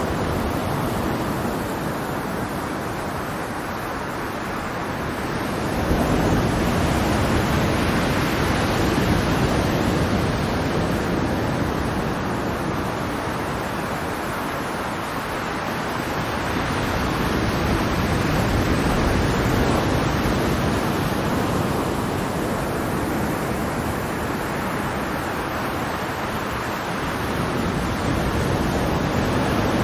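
Ocean waves: a steady rush of surf that swells and ebbs as each wave comes in, loudest about six seconds in.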